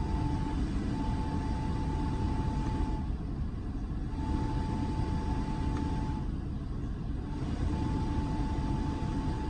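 Skoda Kodiaq's cabin heater fan whistling: a single steady whistle that comes and goes four times, over the car's road and engine rumble heard inside the cabin. The owner suspects water or melted snow collecting in the heater housing.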